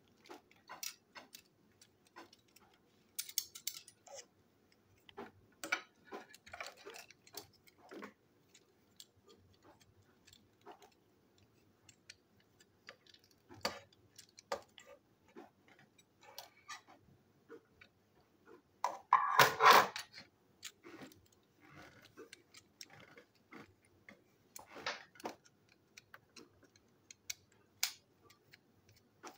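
Irregular clicks and taps of small plastic toy-train parts and a screwdriver being handled during disassembly, with one louder rattling clatter about two-thirds of the way through.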